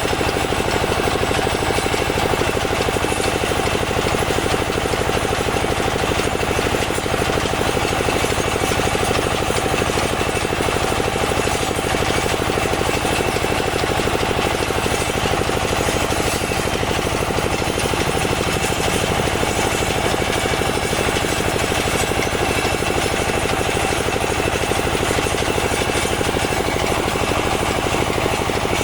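Small soil-testing drill machine running steadily with a rapid, even, hammering rattle.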